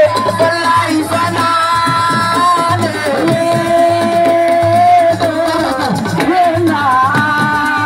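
Live Senegalese assiko music: long held, slightly wavering sung notes over continuous hand drumming.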